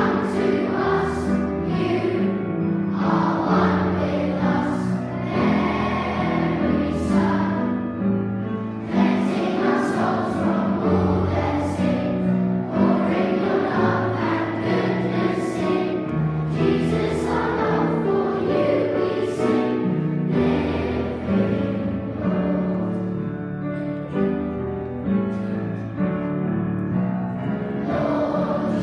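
A large group of schoolboys singing a song together in unison, accompanied on a grand piano.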